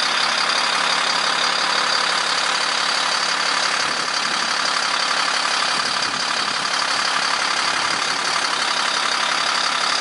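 Bucket truck engine running steadily at idle, with no change throughout.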